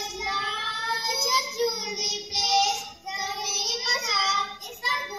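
A young child singing in a high voice, with held, bending notes and a short break about three seconds in.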